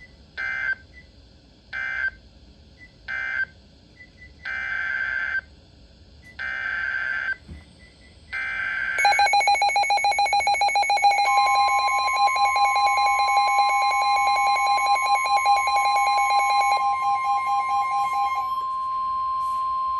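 NOAA Weather Radio SAME digital data bursts: three short buzzy bursts marking the end of one warning, then three longer header bursts for the next warning. About nine seconds in, a rapid pulsing alarm beep starts. The steady 1050 Hz warning alarm tone joins it and holds on alone for a short while after the beeping stops near the end.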